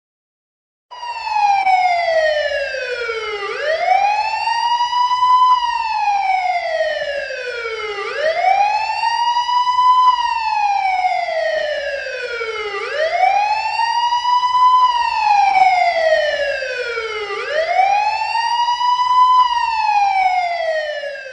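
Siren wailing, starting suddenly about a second in. Its pitch slides slowly down and back up again, one cycle about every four and a half seconds.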